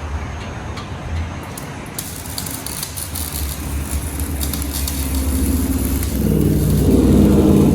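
A car engine running with a steady low rumble; a few seconds in a pitched engine note builds and grows louder toward the end, as if a vehicle is accelerating or pulling closer.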